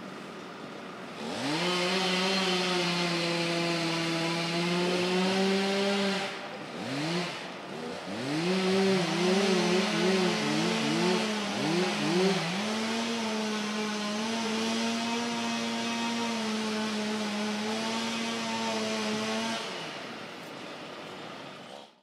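Gasoline chainsaw cutting wood: idling, then opened to full throttle about a second in and held steady. Midway it is revved in a quick series of rising and falling blips, then held high again before dropping back to idle near the end and cutting off suddenly.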